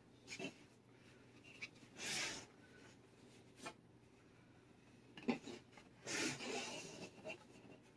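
Hands sliding and smoothing a sheet of printed fabric over a Telecaster body on a table: soft rustling and rubbing, with a longer swish about two seconds in and another about six seconds in, and a few light taps between.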